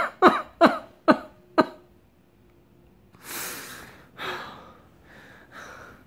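A person gasping and panting in bed, as on waking from a dream: four short, sharp gasps with a falling voiced edge in the first two seconds, then a long heavy breath out about three seconds in and softer breaths after.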